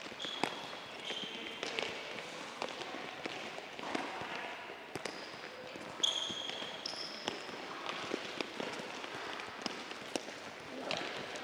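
Several soccer balls being dribbled on an indoor court floor: scattered irregular taps and thuds of feet on balls and balls on the floor, with a few short high squeaks of shoes on the floor near the start and again about six seconds in.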